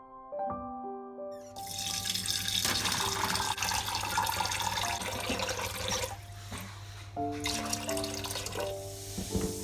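Kitchen tap turned on about a second and a half in, running water into a stainless steel bowl of raw chicken pieces in the sink as they are washed.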